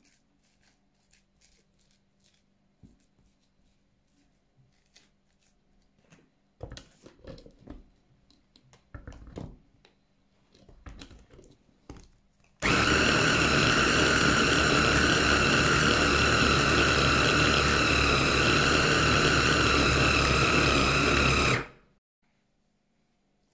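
An electric kitchen blender runs at a steady speed with a high whine for about nine seconds, starting and stopping abruptly. Before it starts there are scattered clicks and knocks of handling.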